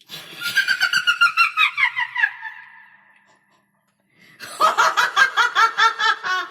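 Witch's cackling laugh, a horror sound effect: a fast run of high 'ha-ha' pulses that falls in pitch and fades out over about three seconds, then after a short pause a second cackle of about five pulses a second begins.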